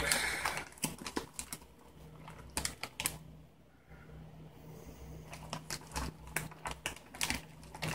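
Clear plastic ration bag crinkling in the hands, in short scattered crackles, with a lull about three seconds in.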